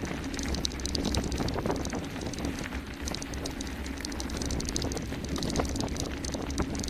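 Mountain bike descending fast on a gravel road: wind buffeting the microphone as a steady rumble, with tyres crunching over gravel and the bike rattling in quick, irregular clicks.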